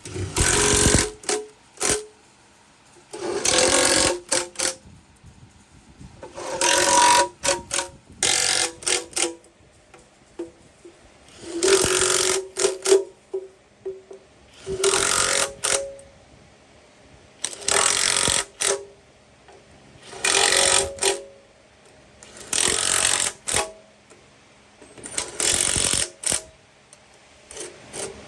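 A power tool run in about ten short bursts, each about a second long and some followed by quick blips, roughly one every two to three seconds, during work on a diesel engine.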